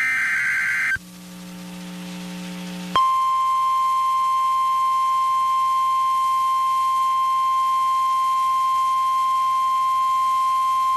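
NOAA Weather Radio alert ahead of a severe thunderstorm warning. The last of three buzzy SAME digital header bursts lasts about a second, then comes a pause with a faint hum, then the steady 1050 Hz warning alarm tone from about three seconds in.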